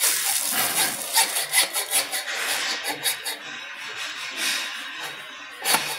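Hacksaw blade in a handheld holder sawing back and forth through a metal stopper on a scooter's stand bracket, in quick rasping strokes about two to three a second, with one louder stroke near the end.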